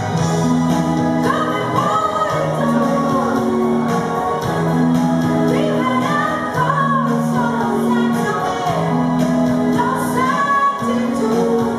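Live band playing with a voice singing: held keyboard notes change every second or two under the sung line.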